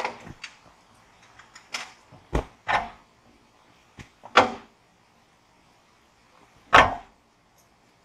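Irregular knocks and short scrapes of the sawmill's steel frame against its steel track as it is worked into place by hand, about eight in all at uneven intervals, the loudest near the end.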